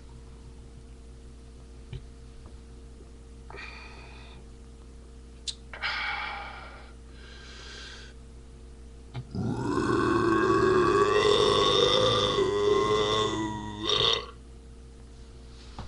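A man burping after drinking canned malt liquor: a few short burps, then one long, loud, pitched burp of about five seconds starting a little after nine seconds in.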